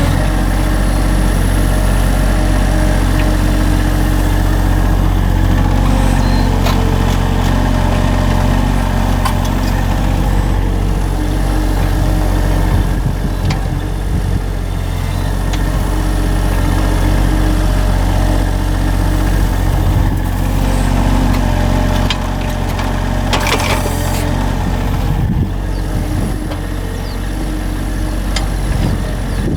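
Engine running steadily at low speed, with scattered clicks and knocks and a short rushing noise about 23 seconds in.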